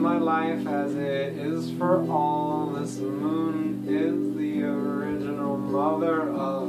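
A man singing long, wavering held notes over sustained chords on an electric guitar.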